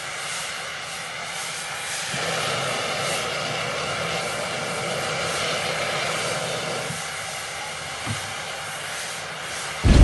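A steady machine drone with a hiss, a little louder from about two seconds in, with one soft thump about eight seconds in. Right at the end a much louder train noise cuts in suddenly.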